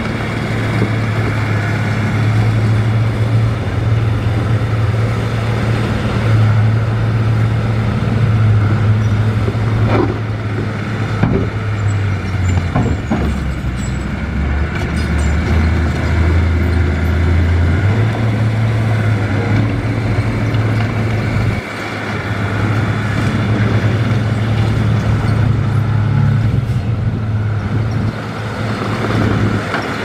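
Heavy diesel engine of an earthmoving machine running steadily, its pitch dropping for about five seconds in the middle and then climbing back, with a few sharp knocks about a third of the way through.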